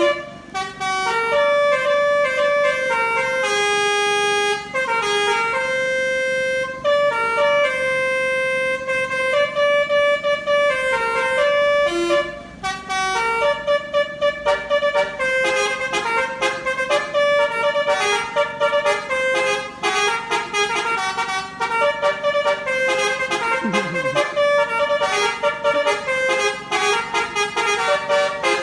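Tour bus's telolet basuri musical horn playing a tune: held notes stepping up and down in pitch, then from about halfway through a run of quick, short notes.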